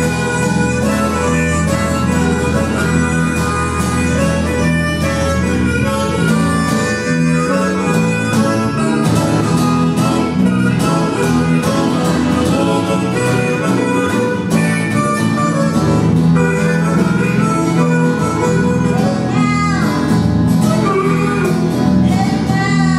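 Live blues band playing: a harmonica solo over electric guitar and electric bass guitar.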